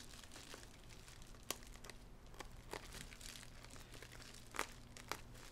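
Bubble wrap crinkling faintly as an X-Acto knife picks and slits at it, with a few sharp small clicks scattered through.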